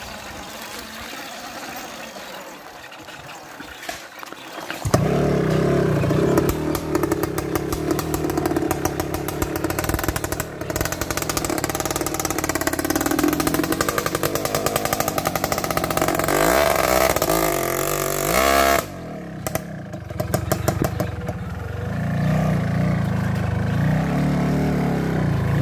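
Log-laden dirt motorcycle engine, quieter at first and then running loudly from about five seconds in. Around the middle the engine revs up and down quickly, drops off briefly, then picks back up.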